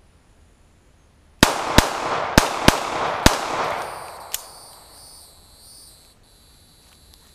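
Five 9mm pistol shots from a Zastava M88A, fired in quick succession about half a second apart, each echoing and dying away over a couple of seconds. A lighter, sharp click follows about a second after the last shot.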